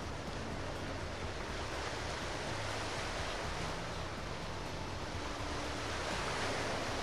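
Steady rushing noise of wind and sea water, with a faint low hum underneath.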